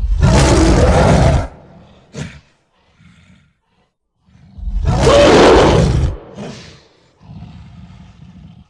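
Giant-ape creature sound effect for King Kong: two long, loud roars about four seconds apart, each followed by a short grunt, then a low rumbling growl near the end.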